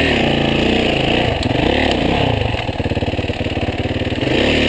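Yamaha enduro dirt bike engine revving up and down as the throttle is worked on a slow, steep off-road climb, its pitch rising and falling several times.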